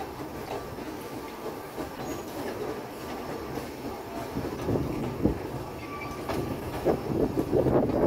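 Narrow-gauge train carriage running along the track: a steady rumble with irregular clicks and clatter from the wheels and running gear, growing louder near the end.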